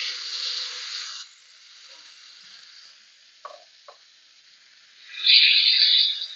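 Oiled, marinated chicken and vegetable skewers sizzling as they are laid on the hot ribbed plate of an electric contact grill. A loud sizzle at the start fades after about a second, two light clicks follow, and a second loud sizzle comes about five seconds in as the next skewer goes down.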